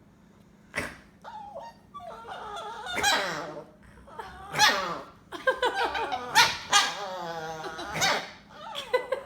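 Chihuahua vocalising in a run of squeaky squeals and whines, many falling in pitch, that starts after a short sharp noise about a second in.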